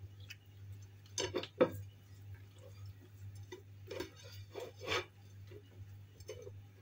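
Light kitchen clatter: a few knocks and clinks of dishes and utensils being handled, the loudest about a second and a half in and a few more later, over a steady low hum.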